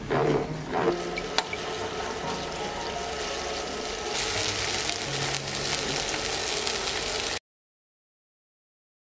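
Salad spinner whirring, then chicken breasts sizzling in a frying pan as they are turned with metal tongs. The sound cuts off suddenly to silence about seven seconds in.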